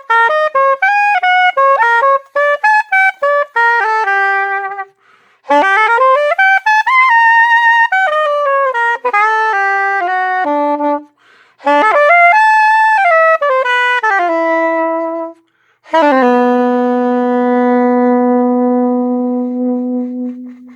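Selmer Series II soprano saxophone played through a Missing Link mouthpiece with a .065 tip and a number 3 reed. It plays four phrases of quick moving notes with short breaths between them, and ends on one long held low note.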